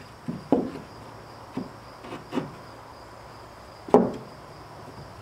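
Wooden soffit board knocking against the rafters as it is pushed and tapped into place overhead: a handful of short dull knocks, the loudest nearly four seconds in. Insects buzz steadily in the background.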